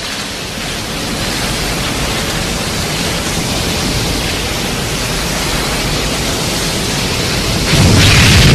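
Film sound effect: a steady hissing, rushing noise that slowly grows louder. Near the end a much louder deep rumble suddenly breaks in, the start of a boom or explosion.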